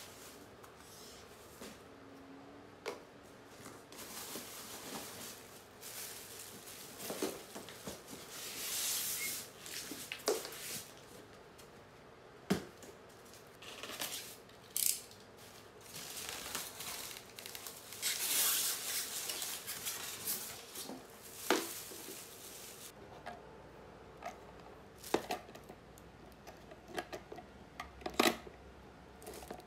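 Unpacking by hand: cardboard and plastic wrapping rustling, scissors cutting through packaging, and scattered knocks and clicks as items are handled on a wooden floor. Longer rustles come about 8 and 18 seconds in.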